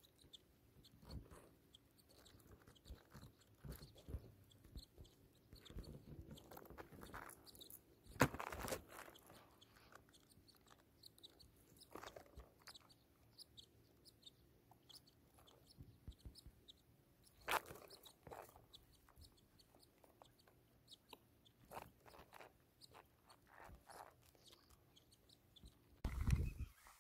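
Faint crackling and rustling of dry grass stems close to the microphone, with a few louder crackles and a heavier bump near the end.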